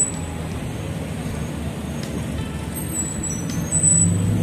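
Road traffic on a busy city street: steady tyre and engine noise from passing cars, with one car's engine growing louder near the end as it comes close.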